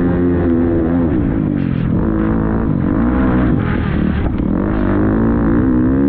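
Motocross bike engine on the race track, held at high revs, then eased off with the pitch dropping and wavering for a few seconds before climbing back to high revs near the end.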